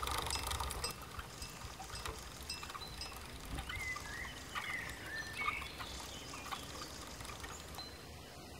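Ox-cart soundscape: small bells on the cart or ox clinking at intervals over a low rumble, with a few short chirps around the middle.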